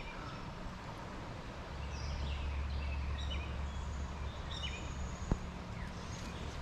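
Small birds chirping again and again, short quick notes, over a steady low outdoor rumble that swells a couple of seconds in; a single sharp click sounds about five seconds in.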